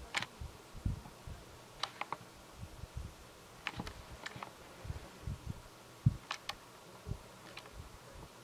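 Light handling noises from a plastic cord winder being turned over and worked by hand: scattered sharp clicks, about ten at irregular intervals, over frequent soft low knocks.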